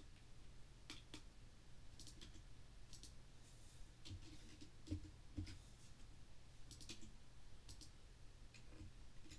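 Faint computer mouse clicks, scattered and irregular, several coming as quick double-clicks, over a low steady hum.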